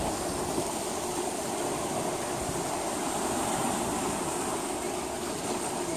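Seawater washing steadily against the shore at night.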